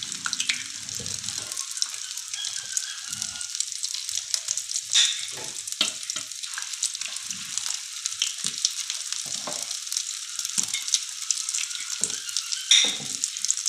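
Egg-coated potato tikkis shallow-frying in about half a cup of oil in a non-stick pan: a steady sizzle full of fine crackling, with a few louder spits about five seconds in and near the end.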